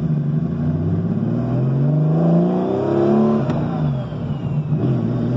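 Turbocharged Porsche 911 air-cooled flat-six accelerating hard, heard from inside the cabin. Its note rises for about three seconds, drops abruptly at a gear change with a click about three and a half seconds in, then starts climbing again near the end.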